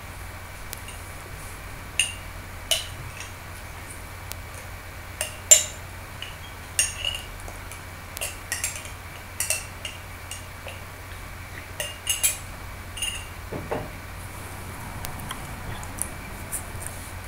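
Scattered light, sharp clinks and clicks, about twenty at irregular intervals, like small hard objects knocking together, over a low steady hum.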